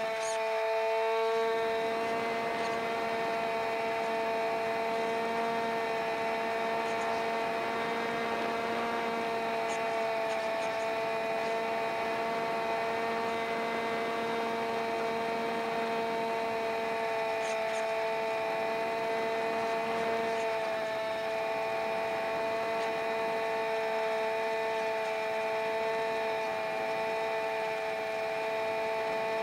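Multiplex Easystar's electric pusher motor and propeller running at a steady throttle in flight, a steady whine of several pitches, picked up by an iPod strapped under the wing.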